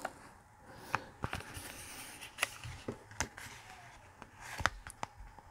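Faint crinkling and a handful of sharp, light ticks from the clear plastic cover film on a diamond painting canvas as hands peel it back and smooth it down.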